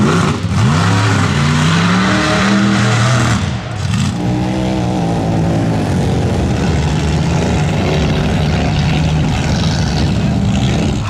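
Off-road vehicle engines revving in the mud. A lifted mega truck's engine revs up and down for the first few seconds; then, after a cut, a small SUV's engine revs up and settles into a steady run as it drives through a mud hole.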